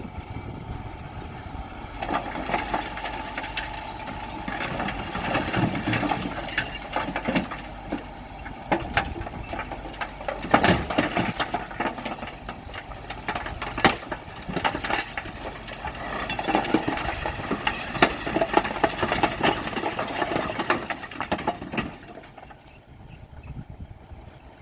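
Rocks clattering, knocking and grinding as heavy diesel earthmoving equipment moves them, with the engine running underneath. The clatter is dense and irregular, starting about two seconds in and dying away near the end.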